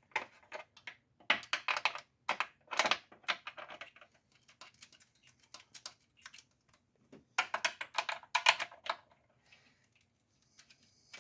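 Socket wrench and bolts clicking in short quick runs as the intake manifold bolts are run down: four bursts of light metallic clicks, with a pause of a few seconds before the last one.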